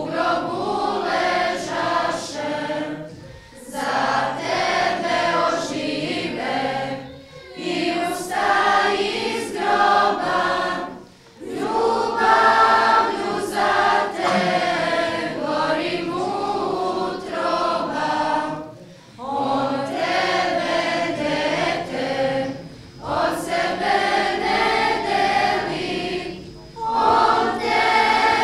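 A church choir singing a religious song in phrases a few seconds long, with short breaks between phrases.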